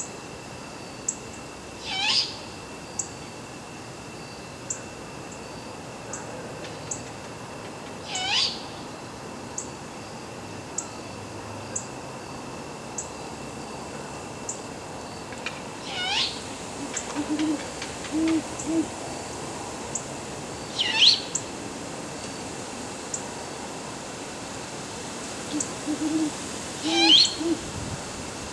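Great horned owls hooting to each other: low phrases of several hoots, one a little past the middle and another near the end. A louder, short, high-pitched sweeping call comes five times, about every five to six seconds.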